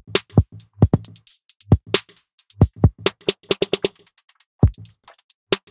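Programmed drum-machine beat of kick, snare and hi-hat hits heard through the Spiff transient shaper in delta mode, so only the transient part the plugin is boosting comes through, with short gaps between hits; the plugin's decay setting is being changed as it plays.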